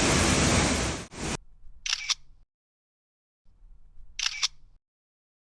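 Loud rushing of a waterfall that cuts off abruptly about a second in, followed by two camera shutter clicks about two seconds apart over near silence.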